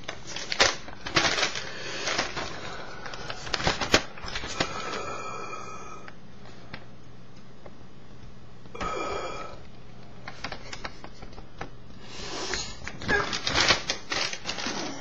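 Paper rustling and crinkling as a newspaper clipping is handled, in irregular bursts of crackles, the busiest near the start and again near the end.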